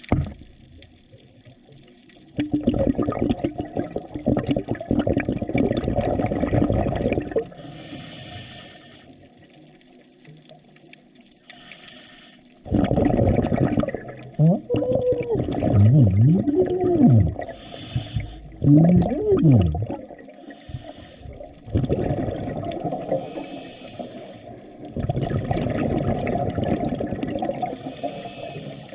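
Bubbling, rushing water heard underwater, in surges several seconds long with quieter gaps between them, and a few low squeaky glides rising and falling partway through.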